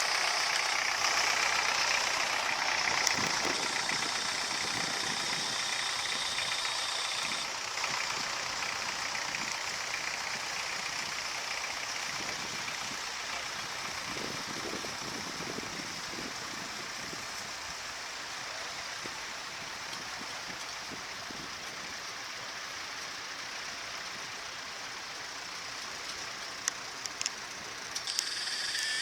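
Vintage tractor engine running, gradually getting quieter through the first twenty seconds or so, then holding steady, with a few short clicks near the end.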